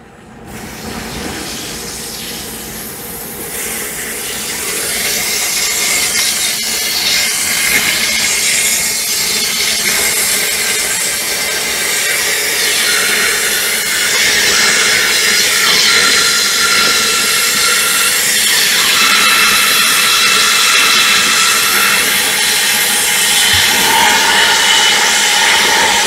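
Air hissing out of an electric water heater's open safety (relief) valve as the drained tank fills with cold water. It starts about half a second in, grows louder over the first several seconds, then rushes steadily with faint whistling tones that shift in pitch, the sign that air is still being pushed out and the tank is not yet full.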